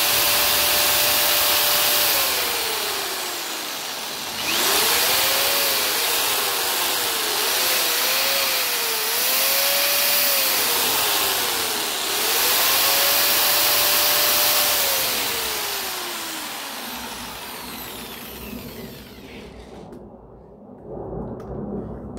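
Corded electric drill and jigsaw running together off a portable power station. Their motors rev up with a rising whine, hold at full speed for a couple of seconds and wind down, then pulse up and down in quick trigger bursts for several seconds. They run up once more and spin down to a stop.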